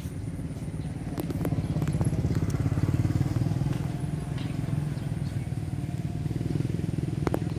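A motor vehicle's engine running with a low, pulsing hum that grows louder about two seconds in and then eases off, with a few faint clicks.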